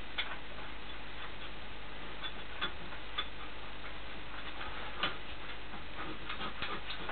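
Irregular light metallic clicks and taps as steel bolts and clamp parts are handled and fitted into holes on a milling machine table, over a steady hiss. The sharpest click comes about five seconds in, with a quick run of clicks near the end.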